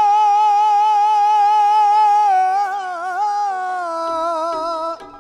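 A male Baul folk singer holds one long sung note on the end of a line. It stays steady at first, wavers about halfway through, then slides a little lower and stops just before the end.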